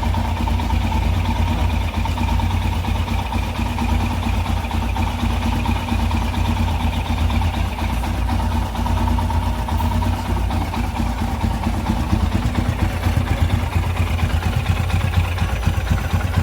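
Royal Enfield Himalayan single-cylinder engine idling steadily with a rapid even thump, run on fresh oil straight after an oil change to circulate it.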